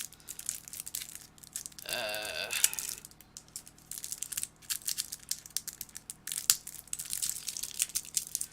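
Packaging crinkling and crackling as a small graphics-tablet accessory is unwrapped by hand, a steady run of small crackles. A short wavering voiced sound comes in about two seconds in.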